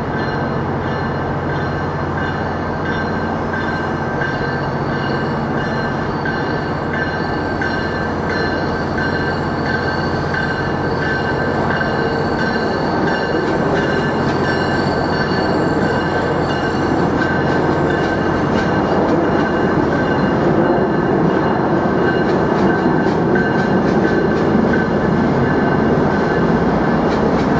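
A passenger train at a station platform: steady running machinery noise with several steady high-pitched tones over a low hum, growing a little louder over the second half.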